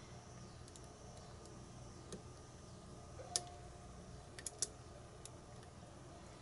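Faint, scattered clicks of pin tumblers inside a re-pinned Sargent padlock as a hook pick lifts and sets the pins under turning tension, about eight in all, the loudest about three and a half seconds in and a quick run of three near four and a half seconds.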